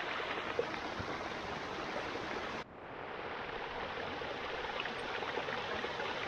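Small mountain brook running and splashing over mossy boulders, a steady rush of water. The sound dips and cuts about two and a half seconds in, then the same rush comes back a little duller.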